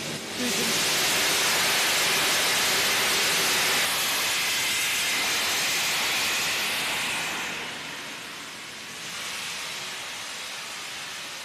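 LNER A3 Pacific Flying Scotsman blowing steam from its open cylinder drain cocks: a loud, steady hiss that begins suddenly, eases off about eight seconds in, and carries on more quietly.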